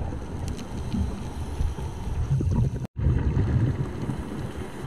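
Underwater rumble and water movement against the camera housing as the diver swims, with a brief drop to silence about three seconds in.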